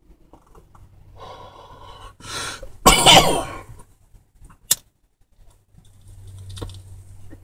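A man coughing hard about three seconds in after exhaling a hit of cannabis smoke from a pipe, with breathing before it and a single sharp click a little later.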